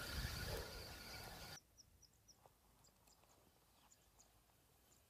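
Steady outdoor noise with wind on the microphone that cuts off abruptly about a second and a half in, leaving near silence with a few faint, short bird chirps.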